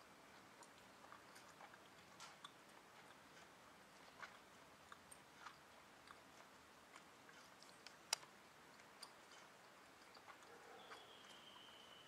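Near silence with faint scattered clicks and ticks, one sharper click about eight seconds in, and a faint steady high tone starting near the end.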